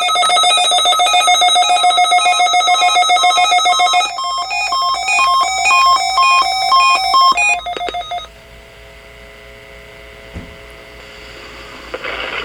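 Several NOAA weather alert radio receivers sounding their alert alarms at once, triggered by the weekly test: a loud clash of electronic beeping and warbling tones. The pattern changes about four seconds in, and the alarms cut off about eight seconds in, leaving faint steady tones and hum.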